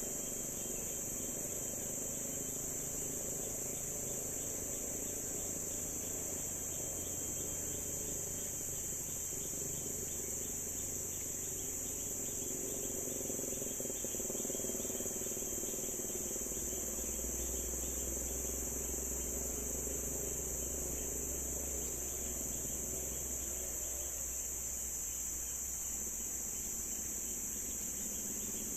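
A chorus of forest insects makes a continuous high-pitched drone that holds steady throughout.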